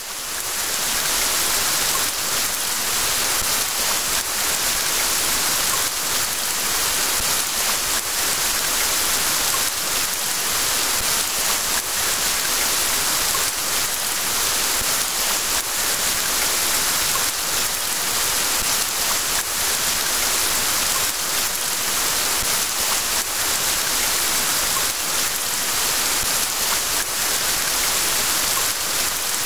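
Steady rain: an even, dense hiss strongest in the highs, fading in over the first second or two and then holding constant.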